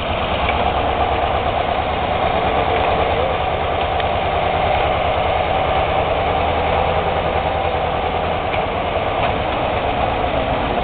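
Small narrow-gauge diesel locomotive's engine running steadily at low throttle with a fast, even beat as the locomotive moves slowly forward.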